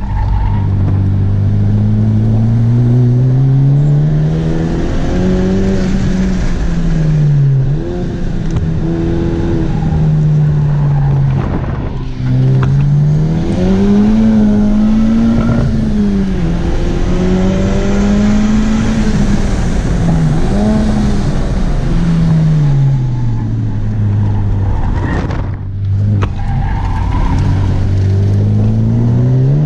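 2017 Honda Civic Type R's turbocharged 2.0-litre four-cylinder engine, heard from inside the cabin, revving up and falling back over and over as the car is driven hard through corners. There are a few brief dips where the throttle is lifted.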